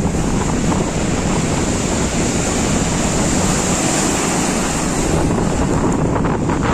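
Storm surf: waves breaking and washing up the shore in a steady loud rush, with strong wind rumbling on the microphone.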